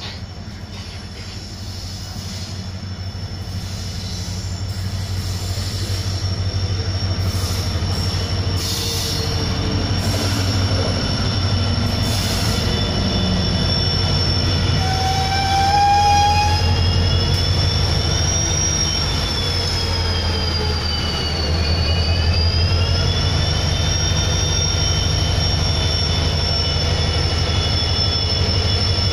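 Indian Railways diesel locomotive hauling a train slowly past on a curved track. Its low engine drone grows louder as it comes near. From about halfway through, high-pitched wheel squeal wavers up and down in pitch as the wheels grind through the curve.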